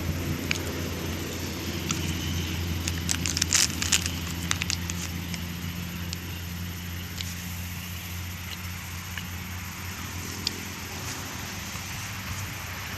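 Honda Sonic 125 motorcycle's single-cylinder four-stroke engine idling steadily through a blue aftermarket silencer. A quick cluster of clicks and crackles about three to five seconds in.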